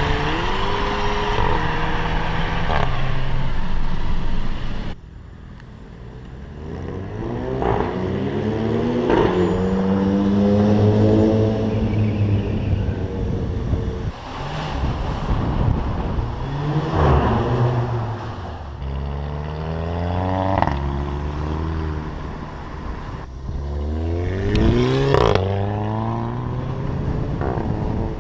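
Volkswagen Fusca (Beetle) with a turbocharged TSI engine accelerating hard through the gears of its DSG dual-clutch gearbox, over several runs. The engine note climbs and drops at each upshift, with a sharp crack from the exhaust on the shift: the DSG 'fart'.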